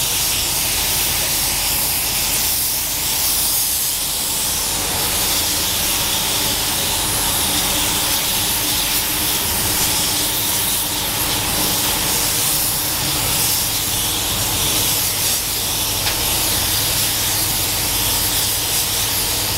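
Steady rushing air hiss in a car paint booth, from an air spray gun laying base coat and the booth's airflow, with a low steady hum underneath.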